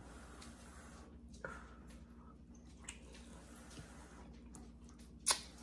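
Quiet eating sounds: noodles being slurped and chewed from a bowl, with a few soft clicks and one sharper click near the end.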